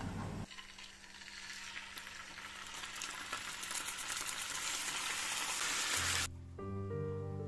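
Food frying in hot oil in a pan, sizzling with fine crackles and growing louder, then cut off abruptly about six seconds in. Music with held notes comes in right after.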